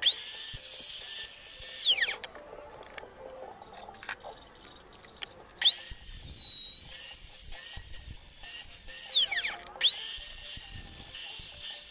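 Table-mounted router spinning a flush-trim bit through plywood edge: a high-pitched whine that comes on three times, its pitch wavering slightly as the bit cuts and sliding down quickly each time it stops.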